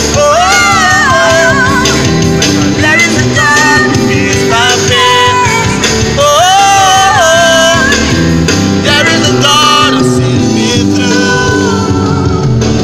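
Gospel song sung by a man and a woman over a Yamaha Motif XF7 keyboard, with gliding, held sung notes.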